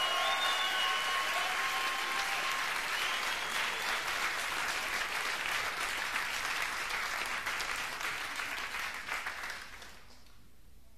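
Applause, dense and even, fading out near the end.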